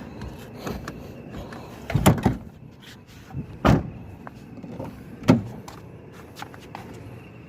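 Three dull thumps about a second and a half apart, with faint clicks and rattles between them, over a low steady background.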